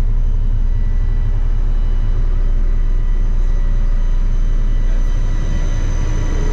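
Small fishing boat's engine running steadily underway, a loud low drone heard from inside the wheelhouse, with a faint steady high whine above it.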